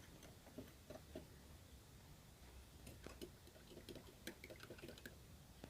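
A spoon stirring a drink in a glass: faint, irregular clinks and taps against the glass, clustered about a second in and again from about three to five seconds in.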